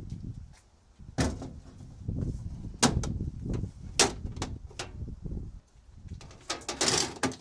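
Sheet-steel pieces and panels from a scrapped microwave being handled and set down: several sharp metal clanks and knocks, then a rattling scrape near the end.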